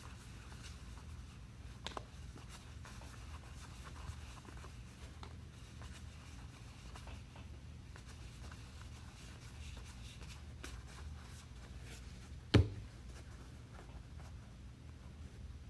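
Trading cards and packs being handled: soft sliding and rubbing of cards over a low steady hum, with a light click about two seconds in and one sharp thump about three-quarters of the way through.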